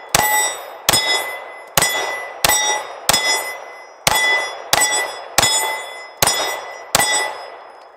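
Glock 26 9mm pistol fired about ten times in steady succession, a little under a second apart, each shot followed at once by the clanging ring of a steel target plate being hit, the ring fading away before the next shot.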